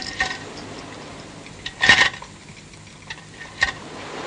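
A few sharp metallic clicks and clanks from the metal fittings of a twin-cylinder scuba set being handled, the loudest about two seconds in with a short ring.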